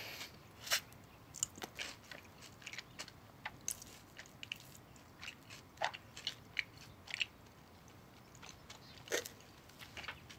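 A mouthful of toast being chewed, in close-up, with irregular crisp crunches and mouth sounds and a quieter stretch a little past the middle.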